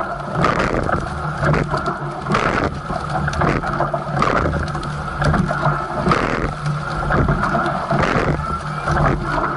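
Coxless four rowing shell under way at racing pace: oars splashing and knocking in their oarlocks with each stroke, a regular beat about once a second over a steady rush of water along the hull.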